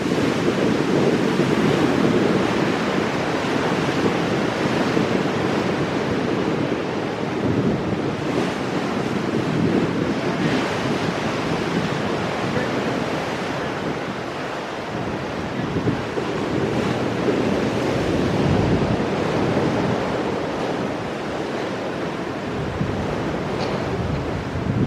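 Ocean waves breaking on rocks and washing back, in a steady surge that swells and eases, with wind buffeting the microphone.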